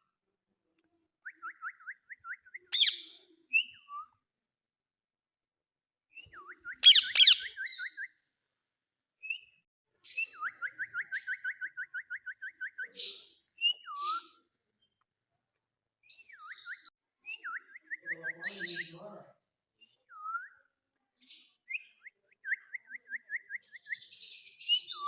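Indian ringneck parakeet whistling and calling: rapid runs of short repeated whistle notes and swooping single whistles, broken by a few loud harsh screeches about 3 and 7 seconds in.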